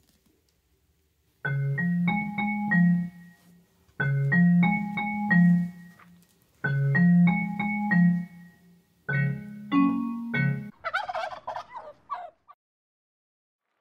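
A short tuned jingle of a few quick notes, played four times, followed near the end by a rapid, warbling turkey gobble sound effect.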